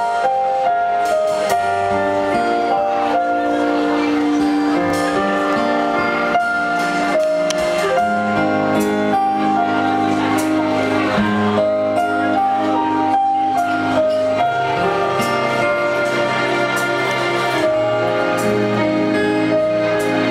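Live band playing the instrumental introduction of a song: a melody of held notes over chords, with light cymbal ticks and no singing yet.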